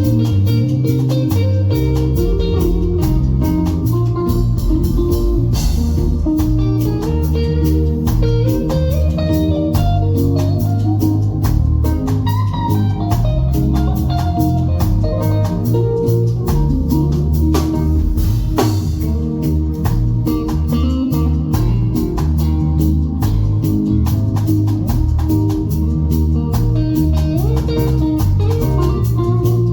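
A band playing an instrumental with guitar, bass and drums, a steady beat throughout.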